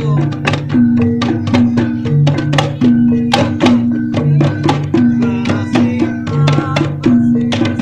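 Javanese reog dance accompaniment: rapid drum strokes, about four a second, over held low tones that repeat in a steady cycle.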